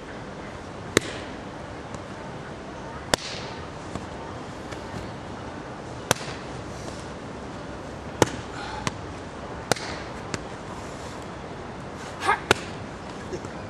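Hand strikes landing on a handheld focus mitt: about seven sharp slaps at uneven intervals of one to three seconds, ending with a quick pair.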